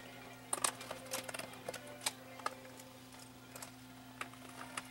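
Light irregular clicks and taps of hands handling an LCD panel and a plastic TV housing, over a steady low hum.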